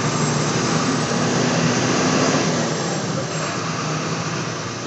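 Volkswagen 17.230 EOD city bus engine running with a steady low hum under a wash of road and cabin noise.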